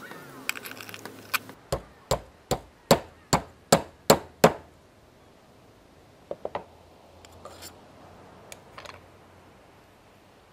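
Hammer taps on the ashtray's bent copper tab as it is straightened over a wooden block. About nine sharp strikes come one every half second or less, each louder than the last, then after a pause a quick burst of three lighter taps.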